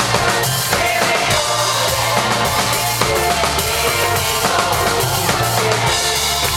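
Live band playing a pop song: a drum kit keeps a steady beat under a heavy bass line and electric guitar, with a man singing lead into a microphone.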